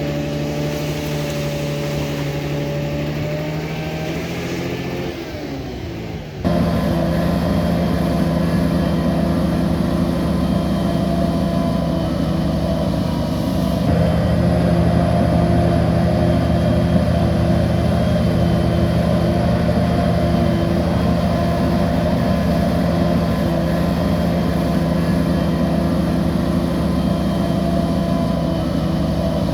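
Heavy diesel bulldozer engine running under load. Its pitch sinks briefly, then the sound cuts abruptly to a louder, steady engine note about six seconds in, and steps up again near the middle.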